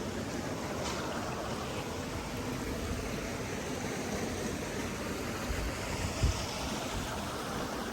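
Running water rushing steadily, as of a stream, with a brief low thump about six seconds in.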